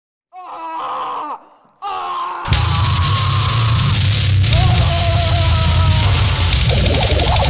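Harsh gorenoise music. After a brief dead gap and two short wavering pitched snippets, a dense wall of distorted noise with heavy bass cuts in about two and a half seconds in and carries on.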